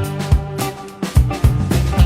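Background music with a steady drum beat over bass and instruments.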